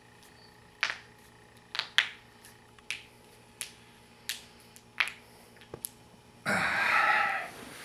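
A man cracking his knuckles one after another, about nine short, sharp cracks spaced irregularly. About six and a half seconds in comes a loud nasal snort of about a second as he clears his sinuses.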